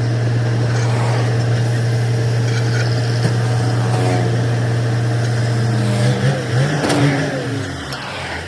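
A motor running with a loud, steady low hum. About six seconds in, its pitch wavers, then drops along with its level near the end.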